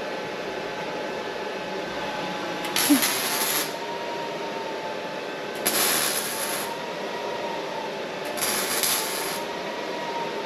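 Three short metallic scraping rustles, each about a second long and spaced about three seconds apart, as car grilles are shifted against a wire-grid wall rack. A steady ventilation hum sounds underneath.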